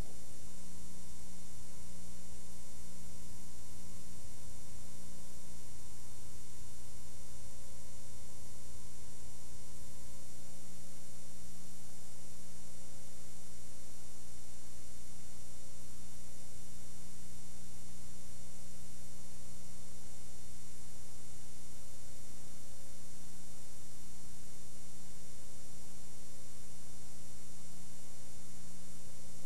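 Steady electrical hum and hiss of a videotape transfer playing through a blank stretch with no programme sound, a low hum with several faint steady tones above it.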